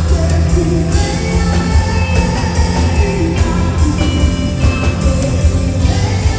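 Live band music with a strong bass line and a steady beat, with singing.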